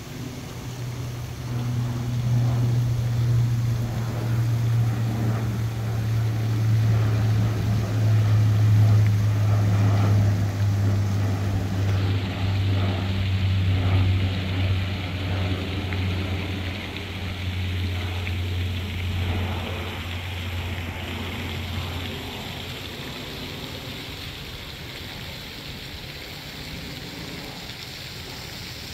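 Lockheed C-130 Hercules four-engine turboprop flying over, a low propeller drone. It swells, then slowly drops in pitch as it passes and fades away.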